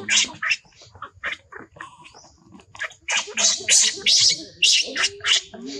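Baby macaque screaming in quick runs of short, high shrieks, which drop away for about two seconds in the middle and then return loudly.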